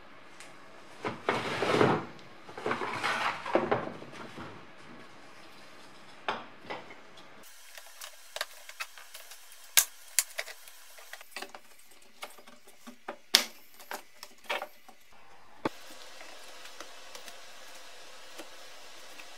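Hard plastic sections of a BMW E30 heater/air-con housing being handled and fitted together on a wooden workbench. It opens with two rustling, scraping passes, then a run of sharp clicks and knocks of plastic against plastic and the bench.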